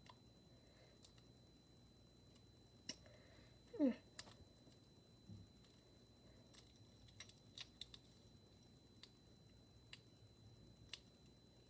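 Faint, scattered small clicks and ticks of metal keychain hardware being handled and pried at with the fingers, trying to work two joined keychains apart on their key ring. A brief falling tone about four seconds in is the loudest moment.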